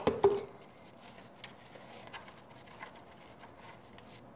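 A sharp clack at the start, then a few light taps and soft scraping of a knife spreading topping onto flatbread on a tray.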